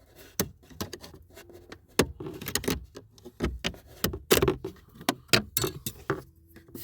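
A hose pick prying at a plastic clip under a car's dashboard: a run of irregular sharp clicks, taps and small scrapes of metal on plastic.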